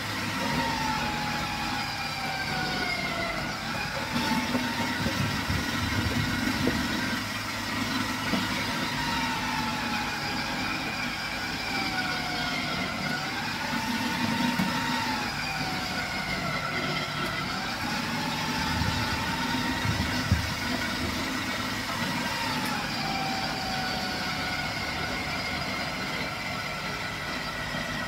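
Electric vegetable grating machine running steadily, grating squash. Its motor whine sags in pitch several times as pieces are pressed down the feed tube, then climbs back, with one sharp knock about two-thirds of the way through.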